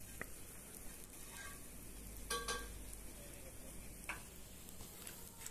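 Uthappams with eggs and gravy sizzling steadily on a hot dosa griddle, the gravy cooking onto the griddle, with a few short clicks.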